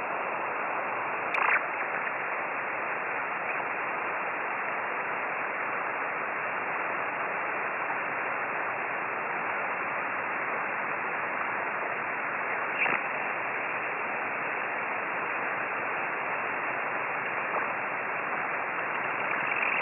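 Shortwave receiver hiss from a 10-metre single-sideband channel with no station transmitting, a steady static cut off at the narrow voice-filter width. Two brief crackles break through, about a second and a half in and again near the thirteenth second.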